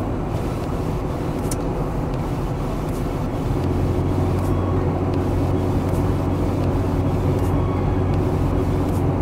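A Toyota 4Runner being driven, its engine and road noise heard from inside the cabin as a steady low rumble. About three and a half seconds in, the engine note steadies into a hum and grows slightly louder.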